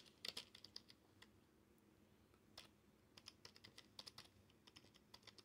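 Faint computer keyboard keystrokes, typing in quick runs with a pause of about a second and a half in the middle.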